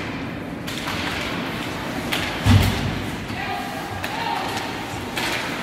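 Ice hockey play in an echoing arena: scattered sharp clacks of sticks and puck, and one loud heavy thud against the rink boards about two and a half seconds in.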